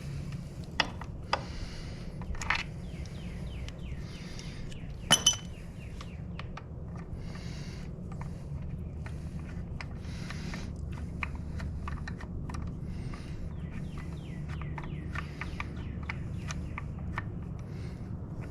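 Hand tools and metal hardware clinking and clicking while a motorcycle's stock shift linkage is being unbolted, with one sharp ringing metal clink about five seconds in. A steady low hum lies underneath.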